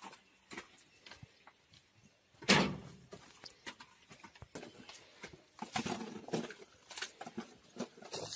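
Shovel digging into mud and soil around a stuck truck's wheel: scattered scrapes and chops, with one louder thump about two and a half seconds in and a busier run of scraping near the end.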